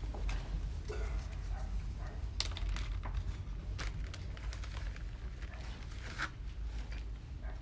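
Plastic bag crinkling in a few short, separate rustles as it is handled and opened to get a cookie out, over a steady low room rumble.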